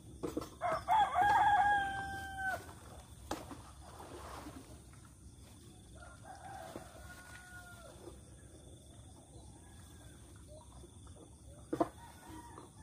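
A rooster crowing: one loud, drawn-out crow about half a second in, then a fainter crow from farther off about six seconds in. A short knock near the end.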